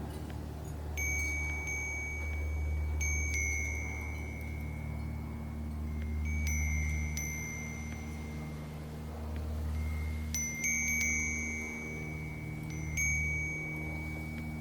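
Wind chime stirred by the wind, its high notes struck in pairs and small clusters every few seconds and each left ringing. A low steady rumble runs underneath.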